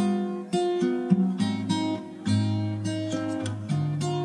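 Background music: acoustic guitar playing plucked and strummed chords in an even rhythm.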